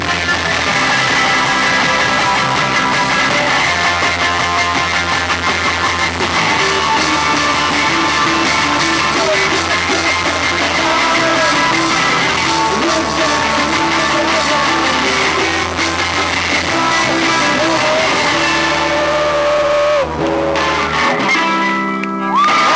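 Live amateur rock band playing loud electric guitar and bass, with little or no singing, picked up rough and distorted by a camera's built-in microphone. The music breaks off near the end.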